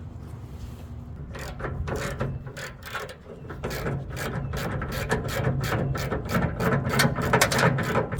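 Ratchet wrench clicking in rapid strokes as the truck-bed bolts are loosened; the clicks start about a second in and grow louder towards the end.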